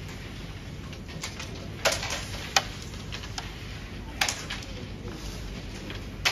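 Carrom striker and wooden carrom men clacking on a carrom board: four sharp clicks, two close together about two seconds in, one about four seconds in and one at the end.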